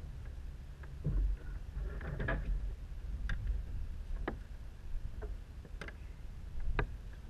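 A handful of sharp clicks and light knocks, about one a second, as a plastic fish-measuring board and gear are handled on a kayak, over a low steady rumble.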